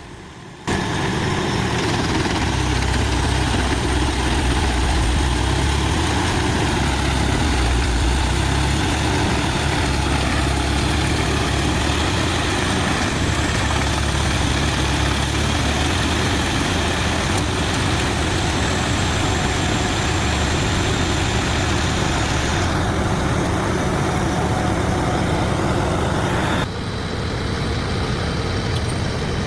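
Large diesel-powered mobile drum wood chipper running hard, a steady heavy drone with a deep engine rumble under the noise of the drum and feed. The sound shifts abruptly twice in the last few seconds.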